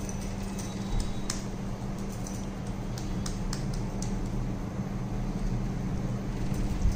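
Steady low hum of room noise, with a few faint soft clicks and squishes from hands pressing and rolling a moist sabudana and potato mixture into a patty.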